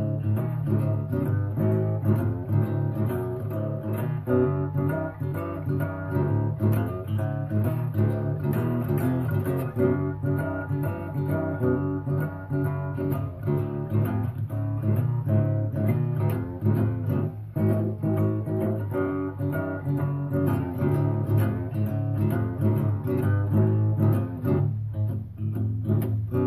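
Background music led by guitar, running steadily.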